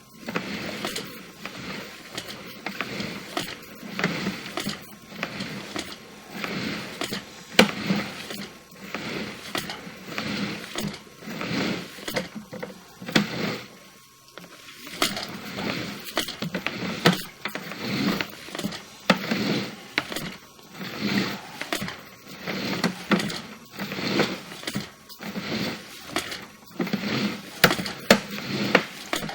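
Sewer inspection camera being pushed down a sewer line from a basement cleanout: the push cable and camera head scrape and clatter through the pipe in surges about once a second, with sharp knocks now and then.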